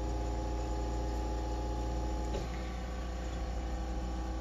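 Steady low hum with several constant tones, and a single light tick a little over two seconds in.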